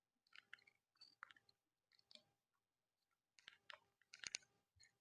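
Faint scattered clicks and light rattles of small plastic and diecast model-kit parts being handled and fitted, loudest in a cluster of clicks a little after three and a half seconds in.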